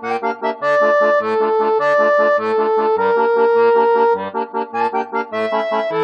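Upbeat instrumental background music: an accordion-like melody of held notes over a bouncing accompaniment of bass notes and short chords.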